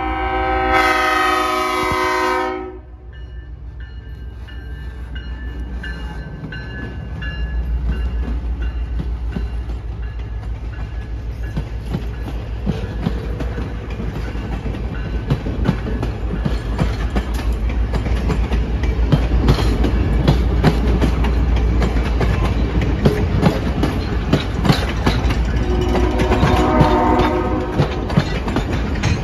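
Diesel locomotive horn sounding one long blast at the start, then a passenger train rolling past with a low engine rumble and wheels clicking over the rail joints of the passing cars. The horn sounds again, fainter and from farther off, near the end.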